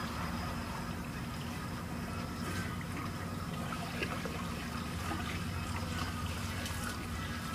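Swimming-pool water sloshing and dripping as a person moves through the water and climbs out over the edge, with a few small splashes and drips, over a steady low hum.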